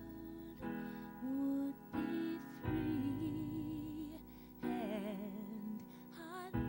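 Slow, gentle gospel music: sustained keyboard chords under a melody line with vibrato.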